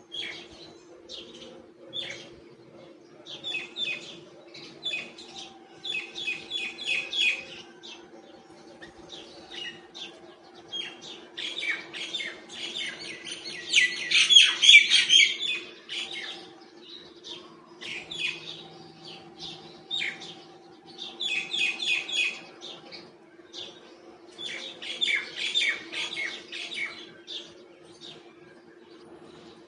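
Myna calling in repeated runs of short, rapid chirps, with the loudest and densest run about halfway through.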